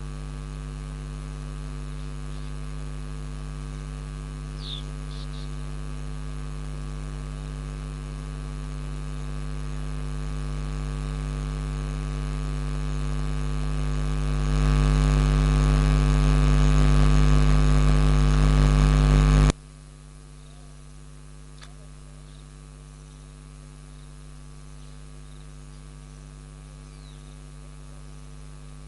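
Electrical mains hum: a steady low buzz made of many even tones. It swells over several seconds, then drops sharply to a quieter hum about twenty seconds in. A couple of faint, short high chirps sound about five seconds in.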